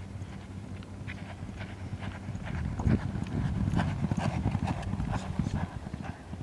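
Racehorse galloping on a dirt track: quick drumming hoofbeats that grow louder as it passes close, about halfway through, then fade as it moves away.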